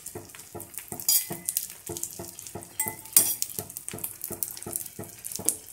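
Oil crackling and spitting around a bread omelette frying on a tava over low heat: a steady run of small pops, about three or four a second, with louder hissing surges about a second in and again about three seconds in.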